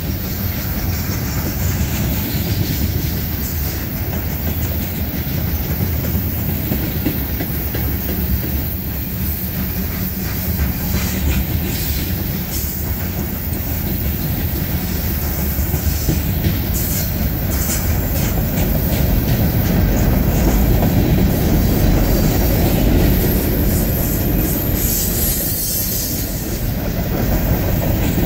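Freight cars of a CSX manifest train, covered hoppers and then gondolas, rolling past at close range with a steady noise of steel wheels running on the rails.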